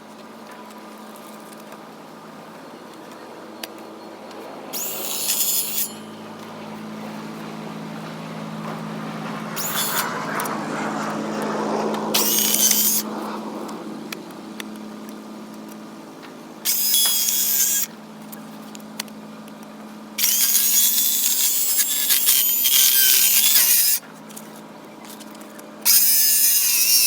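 A power saw cutting through wood in several short runs, each starting and stopping abruptly, with one longer cut lasting about four seconds, over a steady low hum. It is cutting off the rotted bottom edge of an old wooden door.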